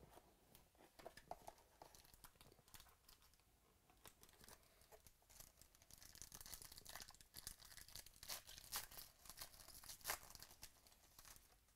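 Foil wrapper of a Contenders Optic football card pack being handled and torn open by hand: a run of quick crinkling crackles that grows denser and louder in the second half.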